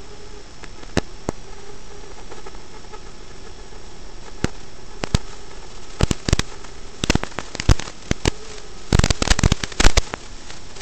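Static hiss with a faint steady hum from an analog FPV video receiver's audio. It is broken by scattered sharp crackles and pops from about six seconds in, with a dense cluster around nine to ten seconds.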